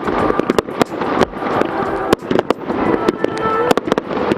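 Fireworks display going off: a rapid, unbroken run of sharp bangs and crackles, several a second.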